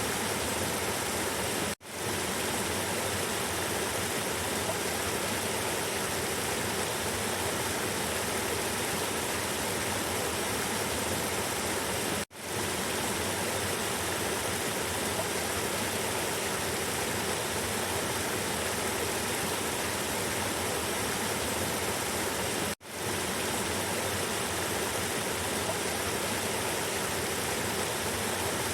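River water flowing and rushing in a steady, even wash. Three times, about ten seconds apart, the sound cuts out for an instant and fades back in.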